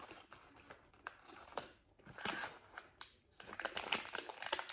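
Plastic Snickers bar wrapper crinkling and crackling as it is handled and peeled back, in many small crackles that get busier and louder in the last second or so.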